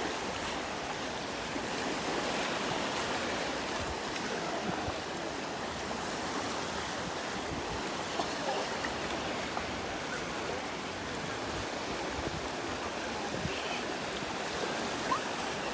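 Beach ambience: a steady wash of small waves on a sandy shore, with faint voices of beachgoers now and then.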